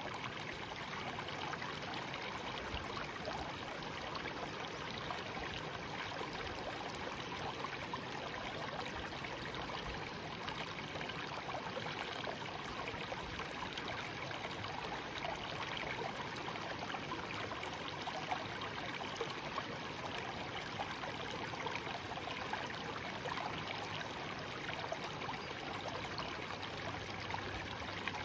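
Shallow stream flowing steadily, a continuous babble of running water.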